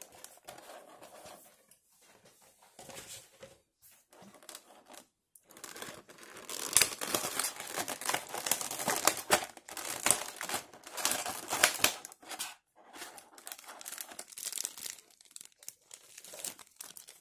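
Clear plastic blister-tray packaging and thin plastic wrap crinkling and crackling as hands handle and pull at them; sparse at first, busiest and loudest through the middle stretch, then thinning out.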